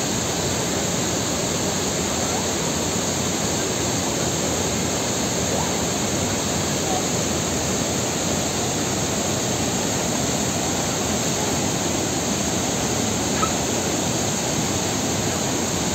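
Waterfall rushing: a steady, unbroken noise of falling water that holds an even level throughout.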